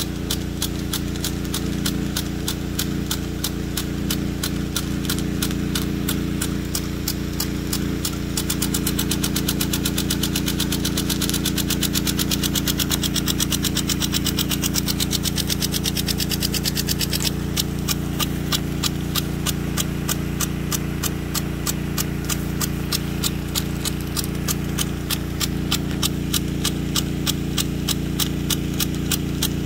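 Weathertec 10-67 brass impact sprinkler, with a 1/4-inch drive nozzle and a 7/32-inch spreader nozzle, running under pump pressure. Its drive arm clacks rapidly and evenly at about four or five strikes a second over a steady low hum, and it grows louder for several seconds midway as the jets swing toward the listener.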